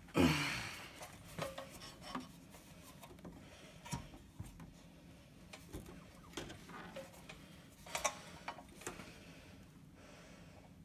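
Hands and tools handling a small 163cc snowblower engine on a workbench: scattered clicks, knocks and the rub of plastic and metal, with one louder scrape with a falling squeal right at the start.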